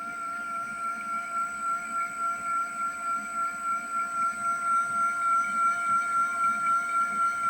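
Kawamoto JF400S well pump's motor running with a steady high whine and a throb that pulses about two or three times a second, growing louder over the first few seconds. This is the abnormal noise of a damaged unit sold as junk.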